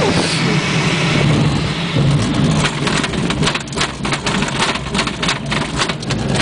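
Rushing air and a low rumble in a glider's cockpit. From about two and a half seconds in, a fast, irregular rattle of knocks joins it.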